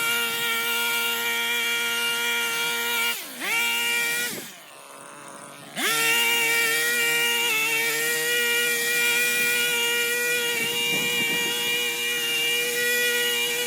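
Electric hedge trimmer running at full speed with a steady high motor whine. About 3 s in it sags briefly and recovers. A second later the trigger is released and it winds down to a stop, then it spins up sharply again and runs steadily.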